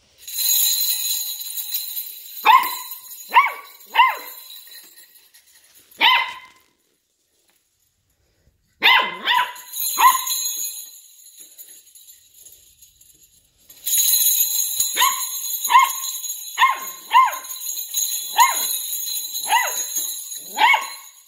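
Puppy barking in short, high yips, a few at a time, while a strap of potty-training jingle bells hung on a door handle jangles as it paws at them. The bells ring at the start, again about nine seconds in and steadily from about fourteen seconds on, with a near-silent pause around seven to eight seconds.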